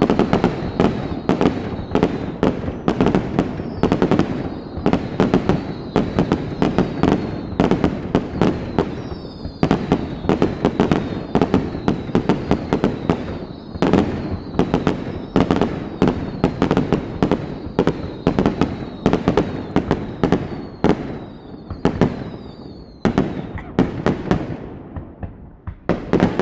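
Fireworks display: a rapid run of sharp shell bursts, a few bangs a second, over a continuous rumble, with high whistles that fall in pitch. The bangs thin out briefly near the end, then pick up again.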